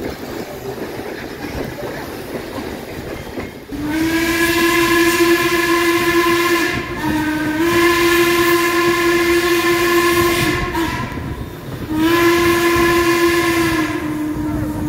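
Steam whistle of Baldwin 2-6-6-2 articulated steam locomotive 1309 sounding two long blasts over the train's running noise. The first blast is held about seven seconds and its pitch dips briefly partway through. The second starts near the end and steps down in pitch.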